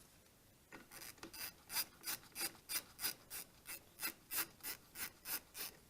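Rhythmic rasping strokes of a hand tool working on the ATV, about fifteen short scrapes at roughly three a second, starting under a second in and stopping just before the end.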